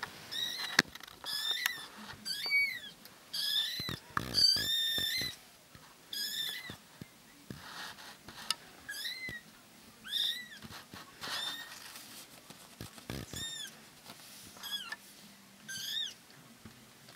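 Young kittens, about two and a half weeks old, mewing: over a dozen short, high-pitched cries that rise and fall in pitch, one held longer about four seconds in. A few sharp clicks mix in.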